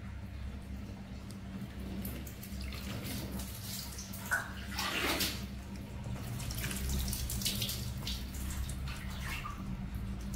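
Water poured from a plastic dipper over a wet baby monkey, splashing and trickling in two spells, one a couple of seconds in and another past the middle. A steady low hum runs beneath.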